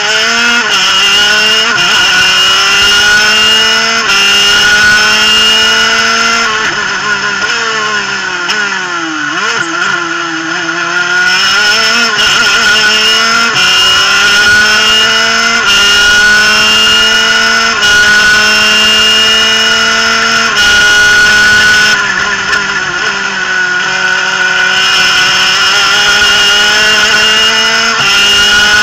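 Superkart's 250cc two-stroke engine at racing revs. Its pitch climbs through each gear and drops sharply at each upshift, about every two seconds. Around seven to eleven seconds in the revs fall away and waver through a slower corner, then climb again.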